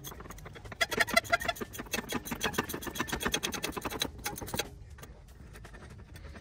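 Hand ratchet wrench clicking rapidly as it tightens a shock absorber mounting bolt, stopping about four and a half seconds in.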